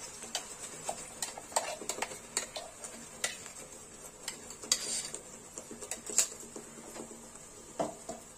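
A metal spoon scraping and clinking irregularly against a stainless steel container as thick ground masala paste is scraped out into hot oil in a pan, over a faint steady hiss of the oil.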